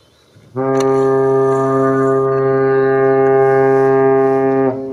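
Ship's whistle of the training ship JS Hatakaze: one long, steady, deep blast of about four seconds, cutting off near the end and leaving a fainter lingering tone.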